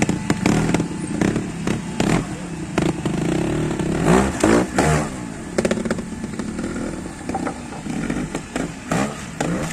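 Trials motorcycle engine blipped in short bursts of throttle, its pitch rising and falling sharply, hardest about four to five seconds in. Clattering knocks from the bike working over obstacles are mixed in.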